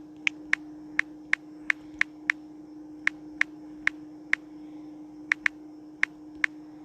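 Phone touchscreen keyboard clicking as text is typed: about sixteen short, sharp taps at an uneven typing pace, over a steady low hum.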